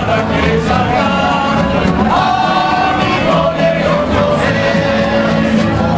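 An estudiantina of men singing together in chorus while strumming guitars and bandurria-type mandolins in a fast, steady strum.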